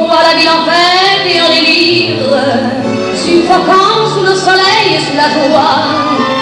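A woman singing over instrumental accompaniment, holding long notes.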